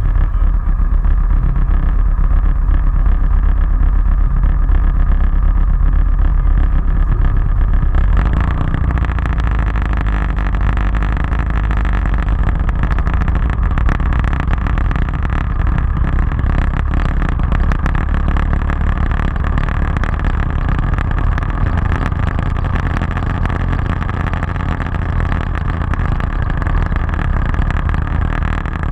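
Motorcycle engine running at low revs as a deep, steady rumble. About eight seconds in it pulls away and carries on at low speed, with more tyre and wind noise over the stone paving.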